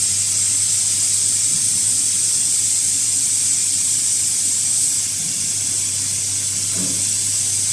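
A steady high-pitched hiss over a low, constant hum, dropping slightly in level about five seconds in.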